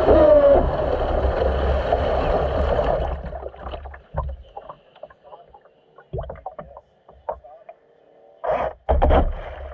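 Electric RC offshore boat's motor whine falling in pitch as the throttle comes off, over water rushing past the hull. About three seconds in the rush dies away as the boat drifts, and water slaps and sloshes against the hull in a few short bursts, the loudest near the end.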